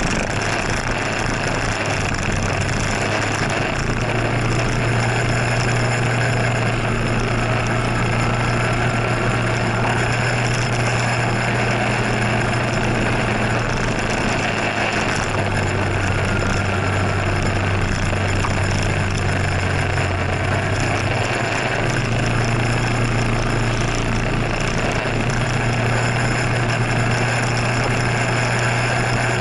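Scooter engine running steadily while riding, its low drone shifting slightly in pitch with speed, over constant wind and road noise.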